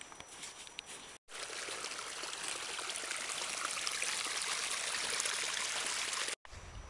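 Meltwater running down a narrow channel in glacier snow: a steady trickling rush that starts abruptly about a second in and cuts off near the end. Before it, faint footsteps in snow.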